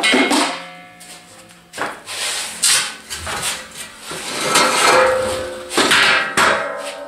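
Heavy steel pieces being handled, with a series of clanks, each leaving a short metallic ring.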